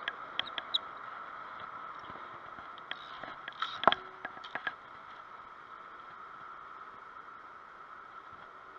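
Clicks and knocks of a camera being handled and repositioned, in two short clusters, the loudest knock about four seconds in, over a steady hum.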